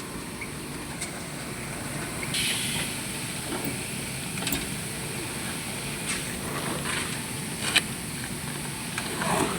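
Steady motor hum with a short burst of hissing about two seconds in and a few sharp clicks or taps.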